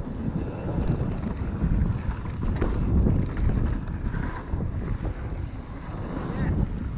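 Wind buffeting the microphone as a mountain bike descends a dirt trail at speed, with the tyres rolling over packed dirt and a few small clicks and rattles from the bike.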